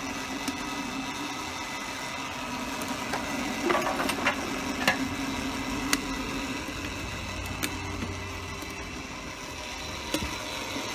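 Steady whirr with a low hum from the electric blower on the chimney of a coal-fired model steam boiler being fired up to raise steam, with a few sharp clicks and knocks around the middle.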